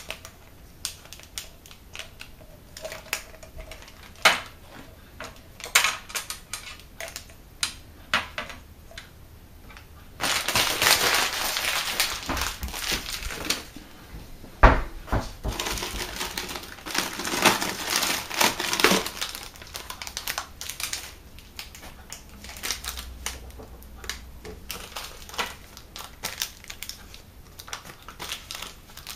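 Hands handling plastic storage tubs and tube-feeding supplies: scattered clicks and taps of plastic lids and containers. From about ten seconds in there is a stretch of dense rustling and crinkling, with one sharp knock in the middle of it, before it thins back to scattered clicks near nineteen seconds.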